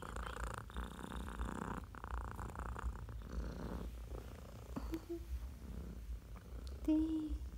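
Domestic cat purring close up while being petted, in long breath-paced cycles that grow fainter about halfway through. A short low hum near the end.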